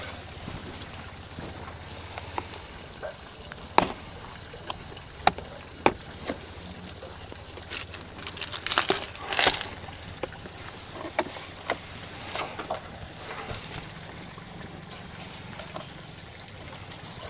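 Hard plastic tool case being handled and opened: a few sharp clicks as its latches snap open, then a scraping, rustling stretch as the lid is lifted, with lighter knocks of hands on the plastic shell.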